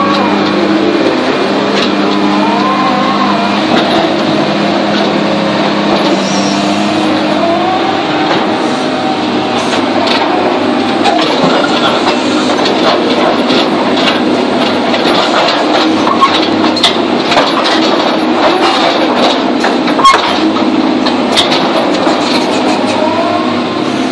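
Rotary bored-pile drilling rig working: its diesel engine and hydraulic drive run steadily, with a whine that rises and falls in pitch. From about ten seconds in come clattering knocks of soil and stones as the drilling bucket works and empties.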